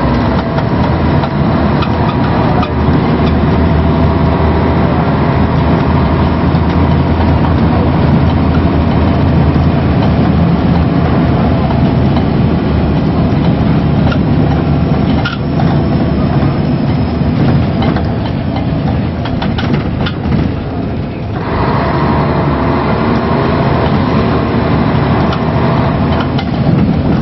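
A Scania L113CRL bus's rear-mounted 11-litre six-cylinder diesel engine running steadily under way, mixed with road noise and scattered rattles. About three-quarters of the way through, the higher part of the sound drops away briefly, then returns.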